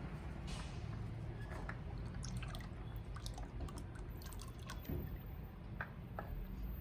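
Liquid dripping and trickling into a container, with scattered small ticks and clicks.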